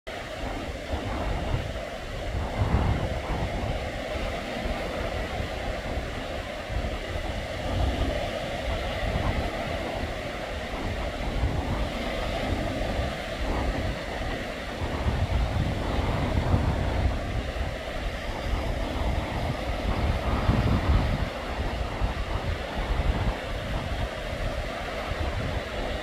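Wind buffeting the microphone in uneven gusts over the wash of small waves on a stony sea shore.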